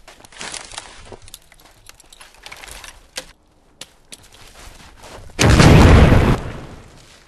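Battle sound effects: a few scattered sharp cracks, then a sudden loud boom, deep and lasting about a second, about two-thirds of the way in.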